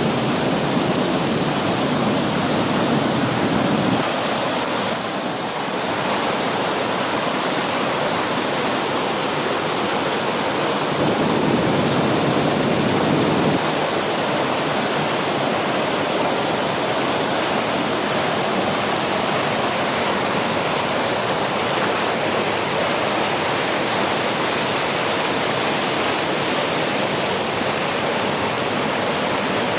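Rushing water of a mountain waterfall and its creek: a loud, steady rush that swells a little twice.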